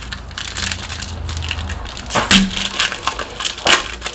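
Panini Prizm World Cup trading cards being flipped through by hand: a run of quick clicks and short slides of card on card, with two sharper snaps, one a little past two seconds and one near the end.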